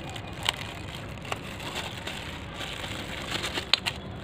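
Clear plastic packaging bag crinkling and rustling as it is handled and pulled off a small plastic wall-mount stand, with a few sharper crackles.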